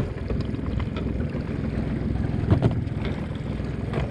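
A small boat's motor running steadily at low speed, a constant low hum, with a few faint knocks.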